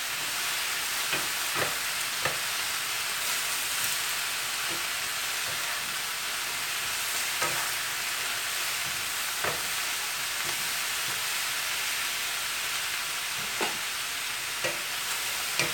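Vegetables stir-frying in a skillet: a steady sizzle, with a wooden spoon tossing them and knocking against the pan now and then.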